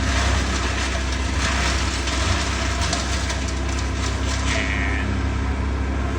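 A large engine running steadily at idle: a continuous low rumble, with a few faint clicks and crackles over it.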